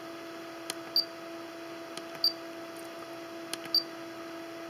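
Soft clicks from a car stereo head unit's buttons and control knob being worked, about one every second and a quarter, over a steady faint hum with a fainter overtone.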